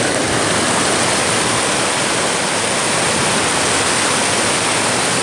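Steady, loud rushing of a large flow of oily liquid cascading down, an 'oil waterfall' from the refinery.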